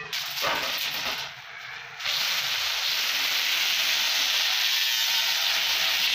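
Handheld angle grinder grinding the flat steel strips of an iron chair seat: a steady, harsh hiss that starts abruptly about two seconds in and holds.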